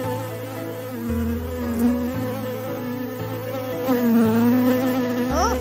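Cartoon bees buzzing: a steady, droning buzz that wavers slightly in pitch, with a few quick rising chirps near the end.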